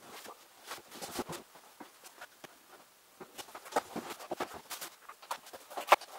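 Unpacking noises: cardboard box and plastic packaging rustling and knocking as a robotic lawn mower is lifted out and set down, with irregular clicks and thumps, the loudest near the end.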